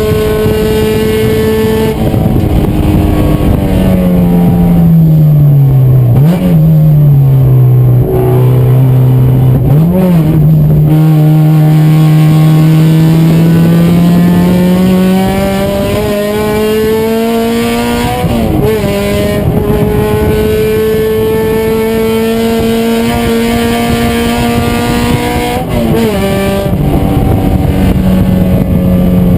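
Race car engine under hard use. The revs fall as it slows, with two sharp throttle blips on downshifts, then climb steadily under acceleration, dropping twice at upshifts.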